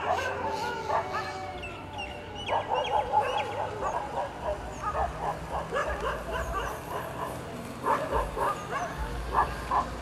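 Many short, overlapping animal calls in a busy chatter. Thin, higher chirps are mixed in over the top.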